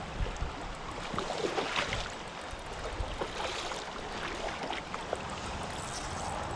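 River water running steadily, with small irregular splashes, busiest about a second and a half to two seconds in.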